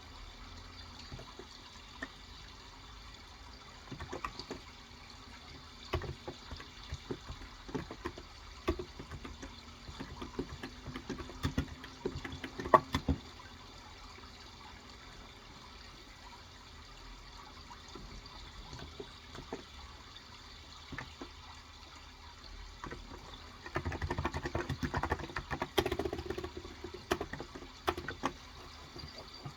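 Typing on a Cox Endeavor electro-capacitive 35g tenkeyless keyboard in irregular bursts of key presses, busiest in the first half and again near the end, over a steady sound of trickling water.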